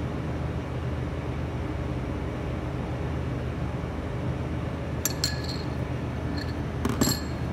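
Metal spoon clinking against ceramic bowls as cream is spooned out and drizzled: a few light clinks about five seconds in and a louder pair near the end, over a steady low hum.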